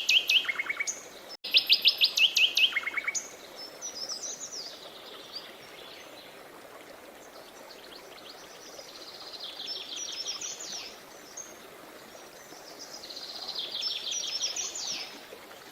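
Songbirds singing: a loud, fast trill of rapidly repeated notes in the first three seconds, cut off for an instant a little over a second in, then quieter warbling phrases twice more near the middle and end. A steady rush of flowing river water runs underneath.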